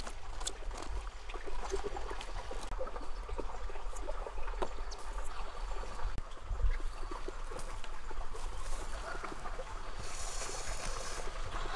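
Water trickling, with scattered light clicks and taps throughout.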